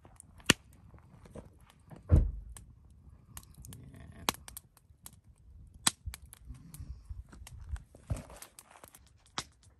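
Wood campfire crackling with scattered sharp pops, mixed with footsteps and thuds on stony ground as the camera is carried; one heavy thud about two seconds in.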